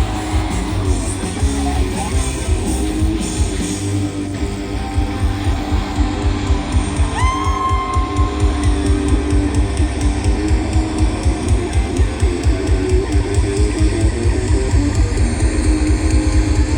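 Live rock band playing an instrumental passage through a loud PA: electric guitar over bass guitar and a steady drum beat.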